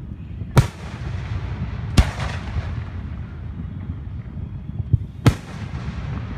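Fireworks exploding: three loud, sharp bangs, each with a short echoing tail, and a smaller pop just before the last one. A steady low rumble runs underneath.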